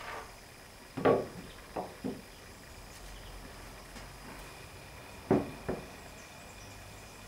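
Five short, sharp knocks: a loud one about a second in followed by two lighter ones, then a loud knock and a lighter one a little past the middle.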